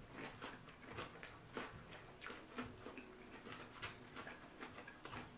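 Two people chewing fresh rice-paper spring rolls filled with lettuce and herbs: soft, irregular crunches and wet mouth clicks, two or three a second.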